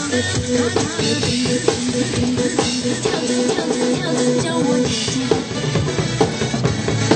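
Music with a drum kit beat and sustained instrumental notes, playing steadily throughout.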